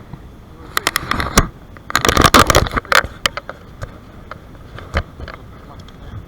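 Close handling noise: a rapid run of clicks, rustles and scrapes on or near the microphone, loudest from about one to three seconds in, with one more click near the end.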